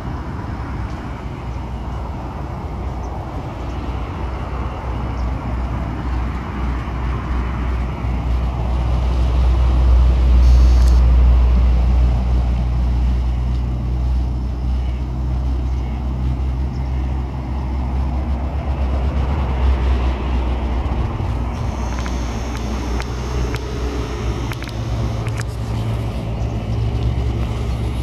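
Low, steady rumble of road traffic, swelling loudest about ten seconds in as a vehicle goes by.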